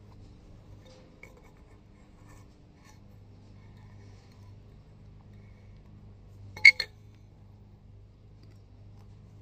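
Threaded black iron pipe fittings being handled, with one sharp double clink of metal on metal a little past two-thirds of the way in, over faint small ticks of handling.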